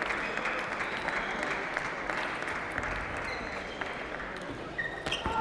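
Spectators applauding in a large arena, the applause slowly dying away, with scattered faint clicks through it.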